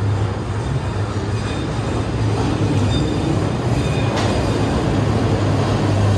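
Chicago 'L' elevated train running on the steel elevated tracks overhead: a loud, steady noise with faint high wheel squeals about three to four seconds in.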